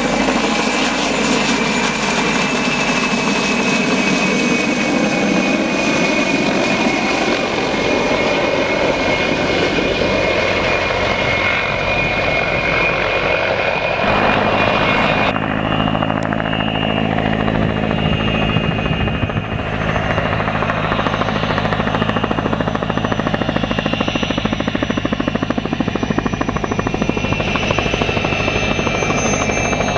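Mil Mi-2 helicopter flying overhead: steady beating of the rotor blades under the high whine of its twin turboshaft engines. The sound changes abruptly about halfway through.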